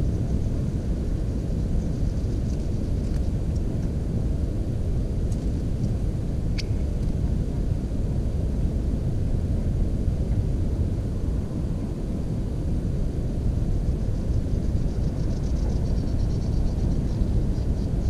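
Steady low rumble of wind buffeting the microphone, with one sharp faint click about six and a half seconds in and a faint, high, rapid ticking trill near the end.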